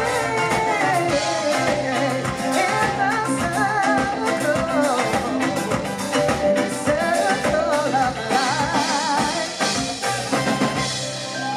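Live band playing dance music: a singer carries the melody over a drum kit keeping a steady beat, with guitar and other instruments.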